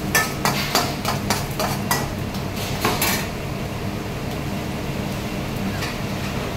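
Metal spoon knocking and scraping against a stainless steel frying pan as food is stirred, about three clicks a second for the first three seconds, then stopping. A steady low hum continues underneath.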